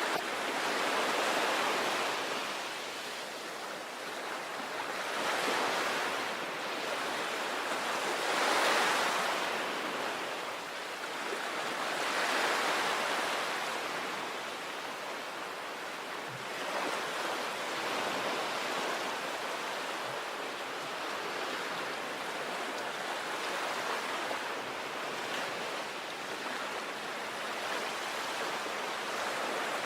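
Sea waves breaking and washing on a shore, in a continuous surf hiss with swells every few seconds.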